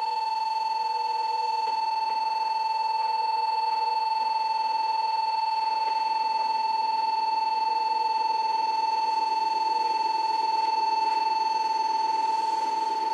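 A station's train-approach warning buzzer, one steady electronic tone held unbroken as the train nears the platform, with a faint rumble of the approaching electric train underneath.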